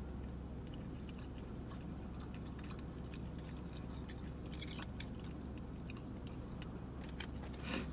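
Chewing with small scattered clicks of mussel shells and long fingernails as mussel meat is picked out and eaten, over a steady low hum. A short sniff near the end from a nose running with the spice.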